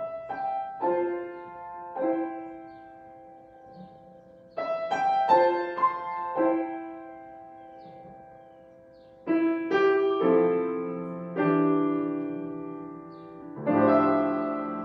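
Grand piano played solo: a slow hymn arrangement in phrases of struck chords that ring on and fade. The first chord comes right at the start, and the chords grow fuller and louder in the second half.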